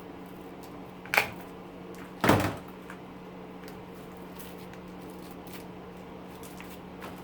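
Two sharp knocks of hand tools and metal motor parts being handled during the tear-down of an electric motor, a second apart, with a few light clicks, over a steady low hum.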